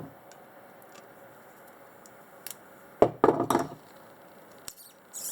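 Hand tools and metal carburetor parts knocking and clattering as they are handled during disassembly: a few light clicks, then a burst of knocks about three seconds in and another short clatter near the end.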